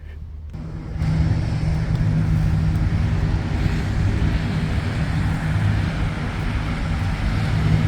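A motor vehicle's engine running steadily close by with a low, even hum that comes in about a second in.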